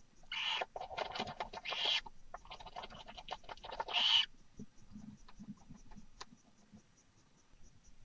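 Adult barn owl giving two harsh, hissing calls, each about a second and a half long, in the first half, followed by faint scratching and shuffling in the nest litter.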